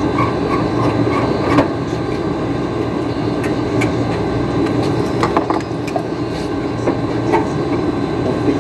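Split-type air conditioner's compressor running with a steady hum, with a few light clicks. It is running weak on a 40 µF capacitor, struggling as a hard-starting compressor.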